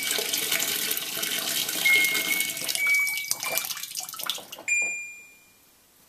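Water gushing into the drum of a Haier top-loading washing machine as its inlet valve opens and the machine fills. The flow cuts off about four and a half seconds in, comes back briefly and dies away.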